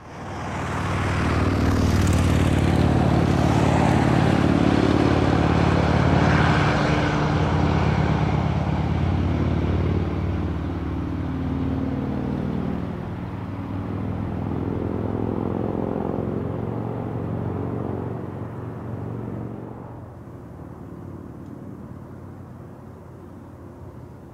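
Diesel locomotives of a long grain train working, a steady low engine drone with a hissy rumble. It is loudest in the first half and fades gradually through the second half as the train moves on.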